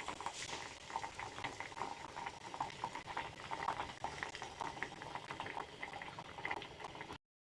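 Food bubbling in a cooking pan: a steady, dense patter of small bubbling pops that stops abruptly near the end.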